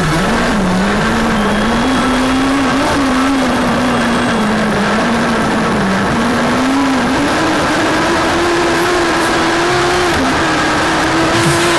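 Autocross race car engine running hard, its pitch rising and falling with the throttle, and climbing higher and holding there for the last few seconds.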